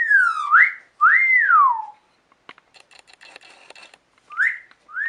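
A parrot giving wolf whistles, each a short upward note followed by a longer rise-and-fall. Two whistles come in quick succession, then faint clicks, and a third whistle starts near the end.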